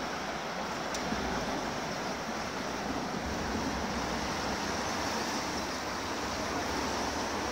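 The River Cher in flood: fast, swollen water rushing steadily and evenly, a continuous rushing noise.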